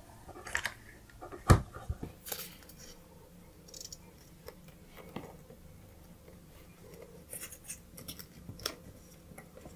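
Faint handling of stiff paper and a hot glue gun as bow loops are glued and pressed together: a sharp click about a second and a half in, then soft rustles and small taps, busier near the end.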